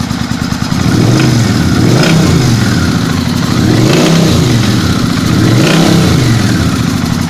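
Suzuki Intruder VS800's V-twin engine idling, then revved three times, each rev rising and falling in pitch before dropping back to idle. The engine is being run to show a knock it has.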